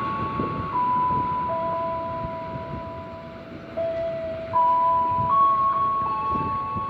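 A slow electronic chime melody of long, clear, overlapping notes, over the fading rumble of a train that has just passed.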